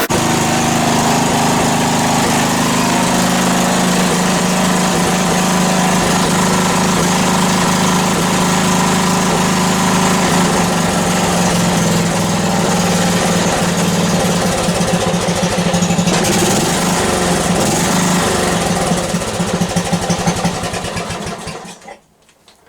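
Riding lawn mower's small engine running steadily, then chugging unevenly and shutting off shortly before the end.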